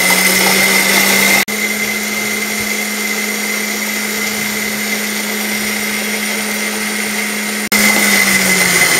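Electric spice grinder running steadily, its motor humming with a high whine as it grinds whole garam masala spices into powder. The sound cuts out for an instant twice, about a second and a half in and near the end.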